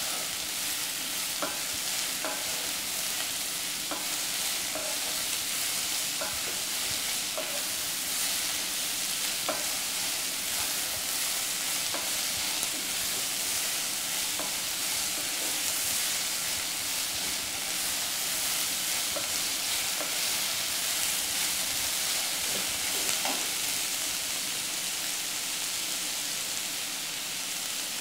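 Sliced onions sizzling in hot oil in a nonstick pot, stirred with a wooden spatula that clicks and scrapes against the pan now and then. The stirring stops near the end while the steady sizzle goes on.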